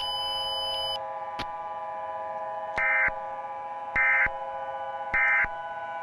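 Emergency Alert System end-of-message signal: three short bursts of digital data tones, about a second apart, over a steady drone of several held tones. A single click comes shortly before the bursts.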